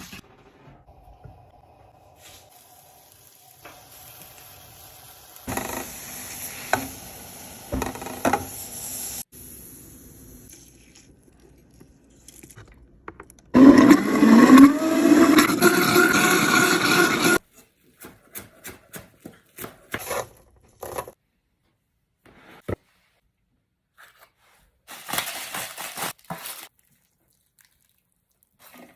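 A blender runs for about four seconds, its motor pitch rising as it gets up to speed, then stops abruptly. Before it there is scraping and clattering, and after it a run of short clicks and taps.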